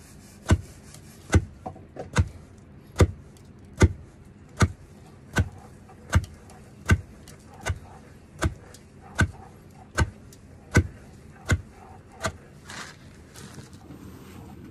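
Repeated sharp blows struck in a steady rhythm, about one every 0.8 seconds, some sixteen in all, stopping about two seconds before the end.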